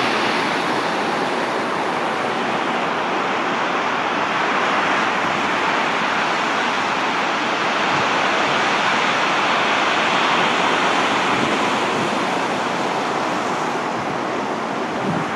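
Wind-driven waves breaking and washing up over a shingle beach, a steady rushing hiss of surf and water running through the stones.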